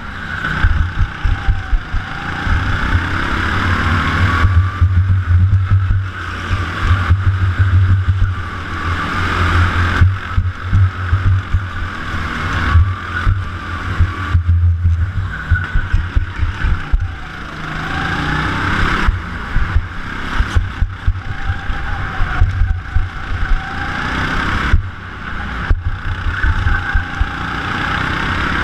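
Go-kart running at race pace, recorded onboard: its pitch falls and rises again every few seconds as the kart slows for corners and accelerates out of them, over a heavy low rumble from wind and vibration on the microphone.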